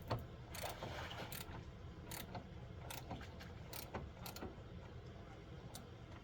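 Light mechanical clicks and taps, about a dozen at uneven spacing, from hands working the hardware of an outboard motor's tilt/run lock.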